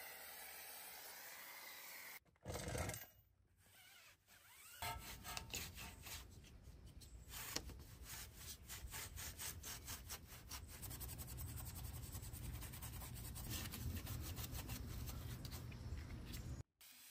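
A pressure-washer foam cannon hisses as it sprays the wheel for about two seconds, followed by a short burst of noise. Then a hand brush scrubs the soapy car wheel and tyre in quick, repeated back-and-forth rubbing strokes.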